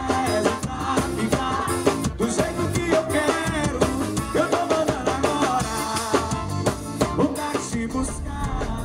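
Live forró band playing: accordion, drum kit and bass with a male singer, at a steady dance beat.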